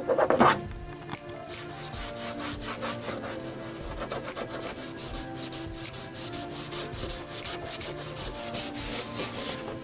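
Cotton rag soaked in lacquer thinner rubbed hard back and forth over a painted motorcycle fairing to lift leftover decal adhesive, in quick strokes about three a second. A brief louder scuff comes at the very start.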